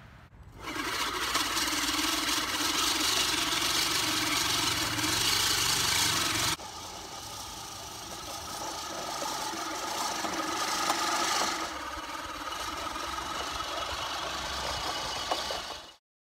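Yardworks 20-inch manual reel lawnmower being pushed through grass, its spinning reel blades whirring and snipping against the bed knife. The sound changes abruptly about six and a half seconds in and cuts off suddenly near the end.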